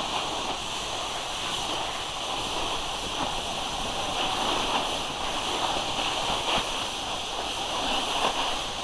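Steady rushing hiss of wind and snow sliding while moving down a groomed ski slope.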